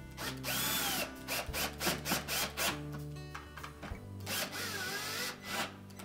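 Cordless drill/driver driving screws into a dishwasher's door and latch assembly, in two short runs: one about half a second in, the other from about four seconds to near the end. The motor whine rises and falls, and short clicks come between the runs.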